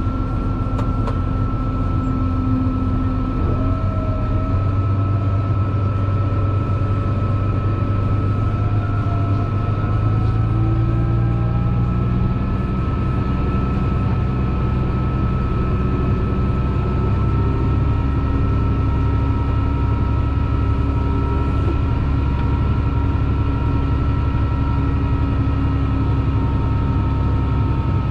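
Case tractor engine running steadily under load: a low drone with a thin, steady high whine over it.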